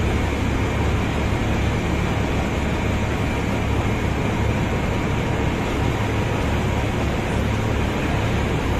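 Steady low drone of barge sand-unloading machinery with a hum underneath and a constant rushing hiss over it, running evenly without breaks as water from the hoses washes the sand down the hold.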